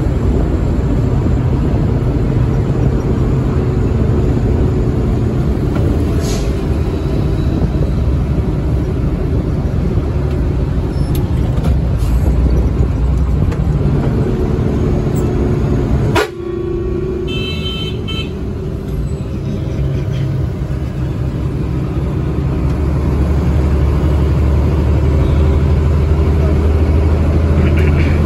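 Engine and road drone inside the cab of a moving bus, a steady low rumble. About two-thirds of the way in it drops suddenly after a click, a brief high horn toot sounds, and the drone builds again.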